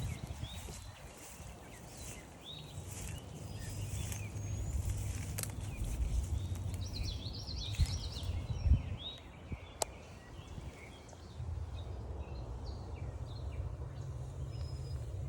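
Several wild birds singing and calling, short chirps and trills overlapping, busiest about halfway through, over a low steady rumble. A single sharp click about ten seconds in.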